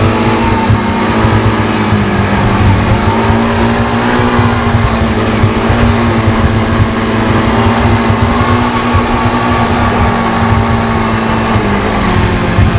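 Quad bike engine running steadily while riding a dirt track, its pitch dipping and rising again twice as the throttle eases and opens.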